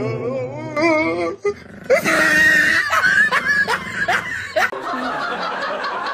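A small dog vocalising: a wavering, drawn-out call, then about half a dozen quick, high, sliding yips and barks in a row. Near the end this gives way to music.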